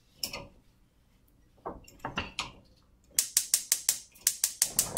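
A gas range burner's spark igniter clicking rapidly, about seven clicks a second for under two seconds, as the burner is lit under the pot. A few soft knocks of handling come before it.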